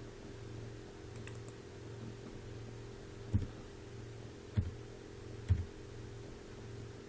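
A few light clicks about a second in, then three separate keystrokes on a computer keyboard about a second apart, over a steady low hum.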